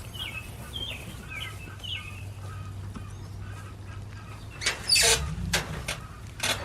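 Chicks peeping over and over in short high chirps. About five seconds in comes a loud rustling clatter, followed by a few sharp knocks, all over a low steady hum.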